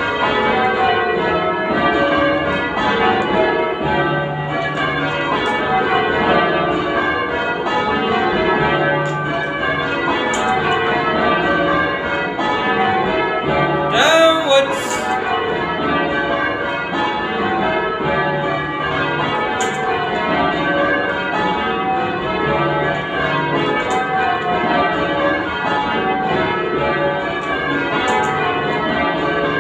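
Church bells of a ring of ten rung full-circle in change ringing, striking one after another in a steady, even rhythm. A brief sharp noise with a quick rising squeak cuts across the bells about 14 seconds in.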